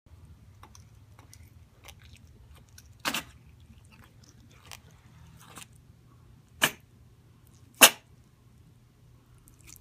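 A pet sneezing three times: sharp short sneezes about three seconds in, then near six and a half and near eight seconds, the last the loudest.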